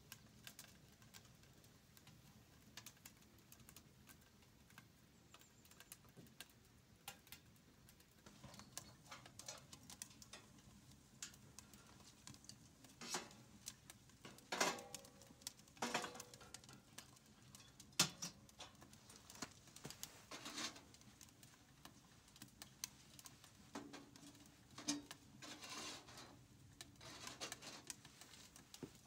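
Wood fire crackling in small steel camping stoves, sparse sharp pops and snaps throughout. In the middle a few louder knocks come as split logs are fed into a stove's top opening.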